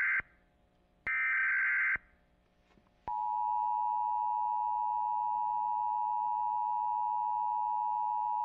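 Emergency Alert System broadcast of an Emergency Action Notification. The end of one screeching data-header burst is followed about a second in by the last burst. About three seconds in, the steady two-tone attention signal starts and holds loud and unchanging to near the end.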